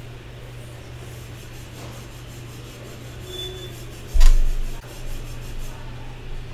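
Steady low electrical hum on an open microphone line, with one sharp thump about four seconds in.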